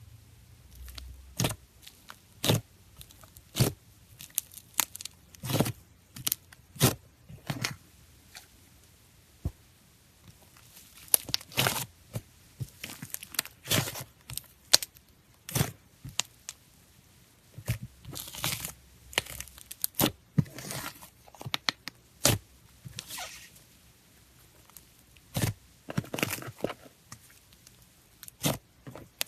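Hands working a taffy slime, stretching and pressing it. It gives irregular sharp pops and clicks, with a few longer stretches of crackly, tearing sound.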